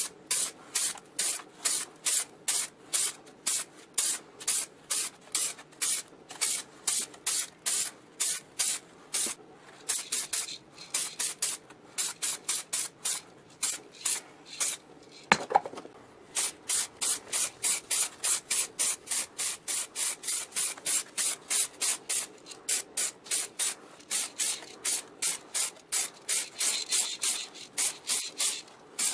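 Rhythmic back-and-forth rubbing strokes of a hand abrasive tool scraping a part, about two to three strokes a second, with a single sharp knock about halfway through.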